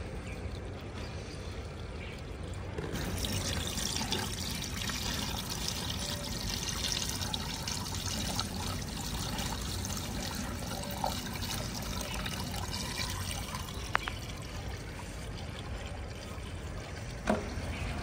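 JCB 3DX backhoe loader's diesel engine running with a steady low rumble while loose mud pours out of the loader bucket, a rushing, pouring noise that swells about three seconds in. Two sharp knocks come, one a little before the end and another near the end.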